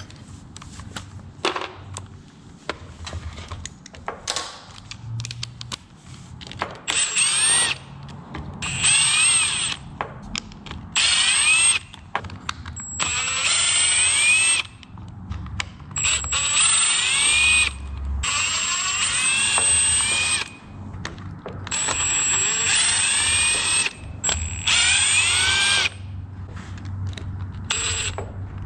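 Cordless drill/driver run in about eight short bursts of one to two seconds each, its motor whine sliding down and up in pitch as it backs screws out of the impact's housing. Clicks and handling noise come before the first burst.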